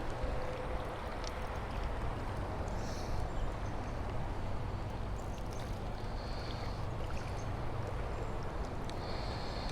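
Steady rushing of river current around a drifting boat, with a few brief faint high tones in the second half.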